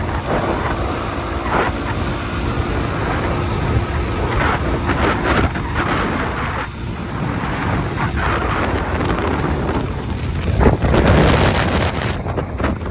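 Wind rumbling and buffeting on the microphone over the steady noise of a motorcycle under way, with louder gusts near the end.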